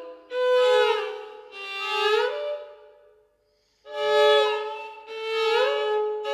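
Solo violin playing sustained bowed notes, often two at a time, that swell and fade, with slides up from one pitch to the next. The playing breaks off into a short silence about halfway through, then resumes.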